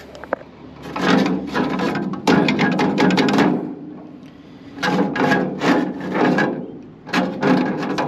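Metal scraping and rattling at an AC condenser fan's hub and shaft as a hand tool works at them, in three bouts. The fan blade has broken around the hub, leaving the shaft and hub free to spin inside the blade.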